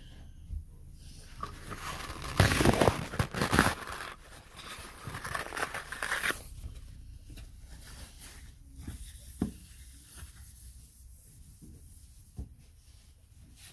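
Paper towel being torn and crinkled in the hands, loudest for about a second and a half early in the stretch and going on for a few seconds, then a few light knocks and rustles as it is used to wipe the counter.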